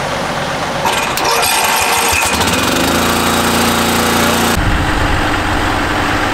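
Heavy diesel engine turning over with rapid clicking, then running with a steady tone. It gives way suddenly, near the end, to a lower, deeper engine rumble.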